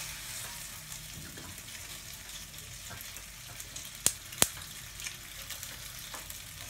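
Pasta and margarine sizzling faintly in a stainless steel saucepan as it is stirred with a plastic slotted spoon, with two sharp taps of the spoon against the pan a little past four seconds in.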